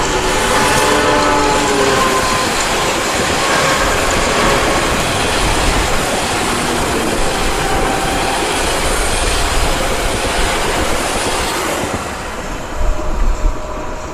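Dubbed-in train sound effect: a multi-tone train horn dying away in the first two seconds, then the steady rumble and clatter of a train running on rails, with a few louder knocks near the end.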